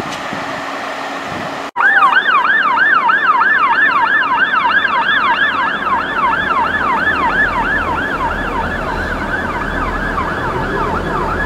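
Police car siren on its fast yelp, rising and falling about three times a second, starting abruptly about two seconds in and easing off a little toward the end. Before it, the low running of a Class 166 diesel train at the platform.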